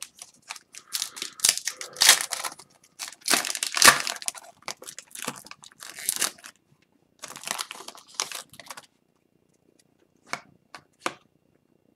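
Foil wrapper of an Upper Deck hockey card pack being torn open and crinkled in a run of crackling bursts. A few short ticks near the end as the cards inside are handled.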